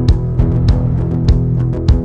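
Instrumental closing-credits music with held notes over a steady beat.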